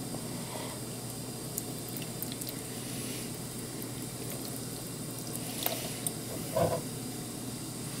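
Distilled water poured from a plastic jug into a plastic container, trickling onto a dry disc of peat soil, with a few small clicks and a brief louder sound near the end.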